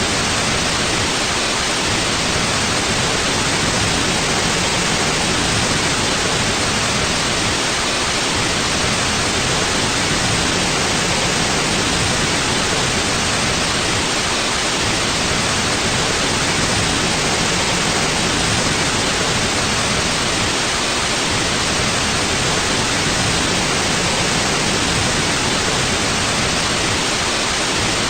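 Steady white noise: an even, unchanging hiss with no breaks or events.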